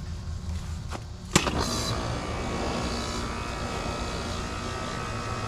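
A sharp click about a second in as the air conditioner's condensing unit is switched on, then the unit starts and runs with a steady hum and whine. It is starting on a newly fitted run capacitor that replaces the failed one.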